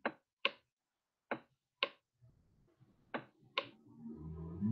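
Three pairs of short, sharp clicks, each pair about half a second apart: a computer mouse button pressed and released as each zero of "50,000" is drawn by hand on a screen whiteboard. A low voiced hum starts near the end.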